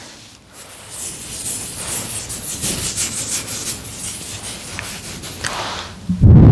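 A bath bomb rubbing and scraping against the microphone, a gritty rasping hiss that comes and goes. Near the end a loud, low blast of air hits the microphone for about a second and a half.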